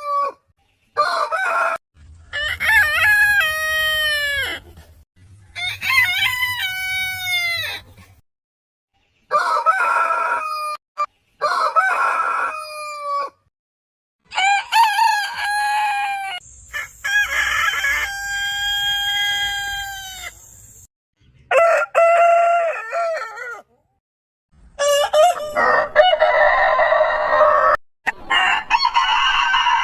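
Roosters crowing, about ten crows in a row. Each crow lasts one to three seconds and often ends on a falling pitch. They are cut together with abrupt silent gaps between them.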